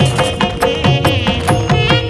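Background music with a quick, steady drum beat, about four to five strokes a second, under a sustained melody.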